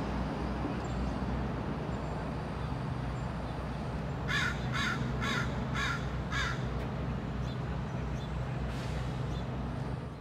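A crow cawing five times in quick succession, about two caws a second, over a steady low hum of city traffic.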